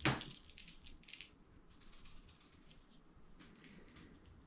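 A brief sharp rustle right at the start, then faint scattered clicks and rustles of small movements.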